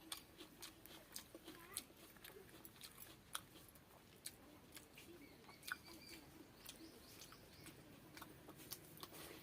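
Faint chewing and small wet mouth clicks of someone eating, irregular and scattered.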